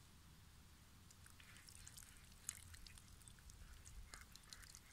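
Thin stream of water trickling over a raw potato as hands rub it clean: faint splashing and dripping that starts about a second in, with one sharper drip about halfway through.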